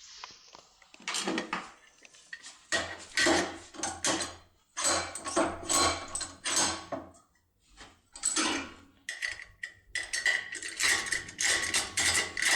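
Metal being cut by hand on a lock body: a series of short rasping strokes, about two a second, with brief pauses between runs.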